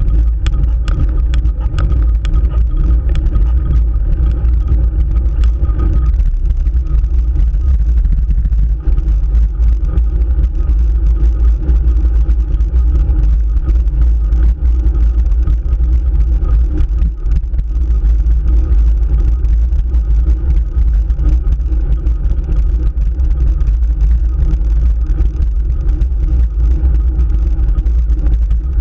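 Steady low rumble of wind and road noise on a road bike's handlebar-mounted camera as the bike climbs, with a scatter of sharp clicks in the first few seconds.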